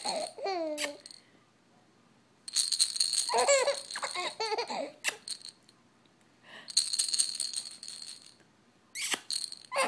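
A rattle inside a stuffed toy being shaken in four bursts of one to two seconds, with quiet gaps between. A baby's short, high laughs and squeals break in during the first two bursts.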